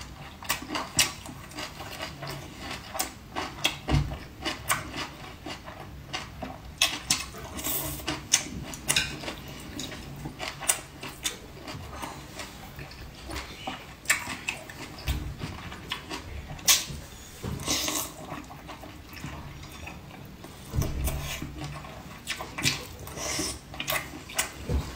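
Eating sounds: chewing, slurping and lip-smacking on rice and boiled chicken in a run of short wet clicks, with chopsticks now and then tapping a porcelain bowl.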